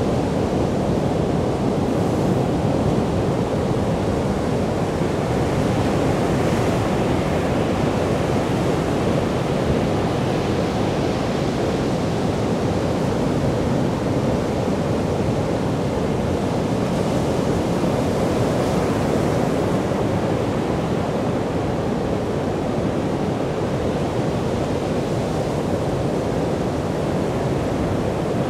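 Ocean surf breaking on a beach: a steady, unbroken rush of waves.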